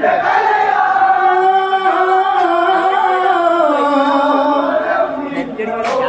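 Onamkali song sung by a group of voices together, with long held notes that step down in pitch about two-thirds of the way through.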